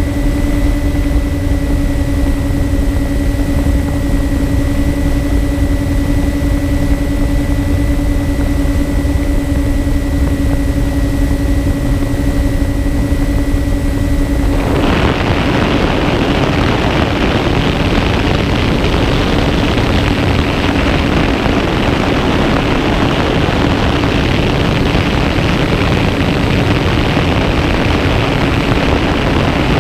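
Steady drone of a MyTwinDream FPV plane's electric motors and propellers heard from on board, one unchanging hum. About halfway through it gives way abruptly to loud wind rush on the airframe and microphone, with the motor hum faint beneath.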